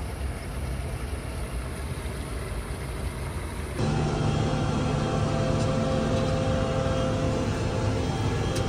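A low, even rumbling noise, then about four seconds in a louder steady drone takes over: a Fendt tractor's engine pulling a seed drill, heard from inside the cab, with a steady hum in several tones.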